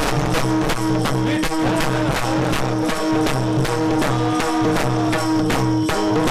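Marathi devotional kirtan music: sustained steady notes over a quick, regular percussion beat.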